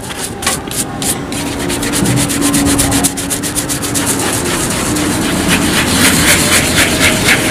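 Plastic-bristle brush scrubbing cleaning gel into suede boot leather in quick back-and-forth strokes, which come faster and a little louder over the last few seconds.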